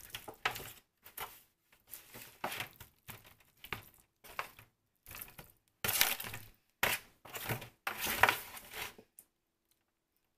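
Hands massaging a wet seasoning marinade into ribs in a disposable aluminium foil pan: irregular squishing rubs with crinkles and crackles of the thin foil, stopping about nine seconds in.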